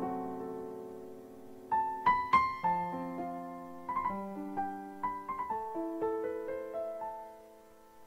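Background piano music: a slow melody of single struck notes ringing out, dying away near the end.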